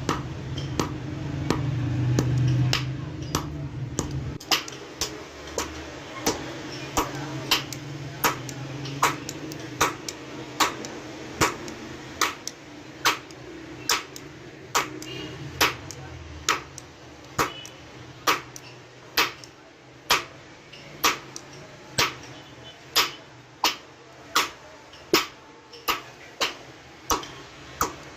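Hand hammer striking metal on an anvil in steady forging blows, about one a second, each with a short ringing ping. A low hum sits underneath and is loudest in the first few seconds.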